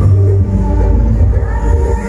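Loud music with a heavy, steady bass line played through a large stacked sound-system rig at a sound-system battle.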